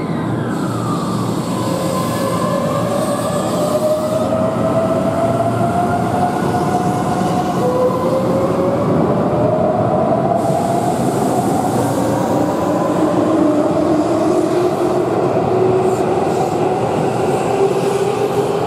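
Keihan electric train accelerating: the traction motors whine in tones that rise slowly in pitch, a new rising tone taking over twice, over a steady loud rumble of wheels on rail.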